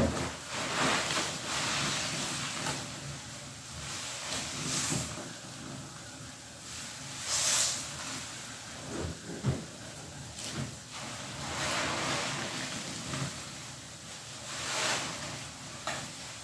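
Foam-soaked sponges squeezed and wrung by hand in a tub of soapy suds: wet squelching and fizzing foam that swells with each squeeze, every couple of seconds.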